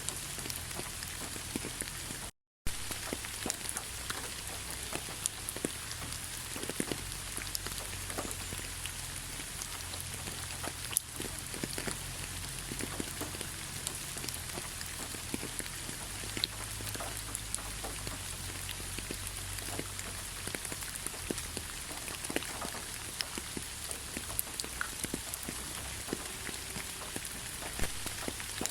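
Steady rain falling, with many individual drops clicking sharply over an even hiss and a low rumble underneath. The sound cuts out completely for a fraction of a second about two and a half seconds in, then resumes as before.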